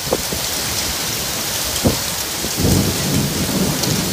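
Typhoon rain and wind: a steady heavy hiss of wind-driven rain, with a deeper rush of a gust about two and a half seconds in and a single sharp knock just before it.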